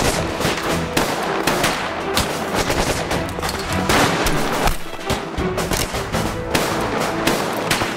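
Shootout with pistols: many gunshots in quick succession, some overlapping, over background film music.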